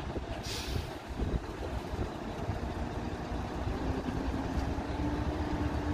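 Heavy diesel dump truck engines running, a steady low rumble, with a short hiss about half a second in. A faint hum joins a few seconds in and rises slightly in pitch.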